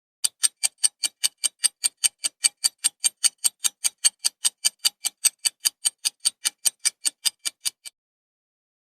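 Fast, even ticking like a clock sound effect: sharp, high clicks at about five a second, which stop abruptly near the end.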